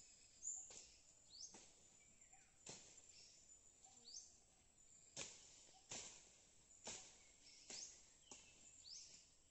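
Faint strokes of a bolo (machete) chopping and trimming on an earth mound, about one cut a second.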